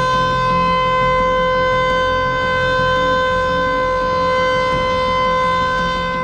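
Warning siren holding one steady, unwavering tone with no rise or fall in pitch.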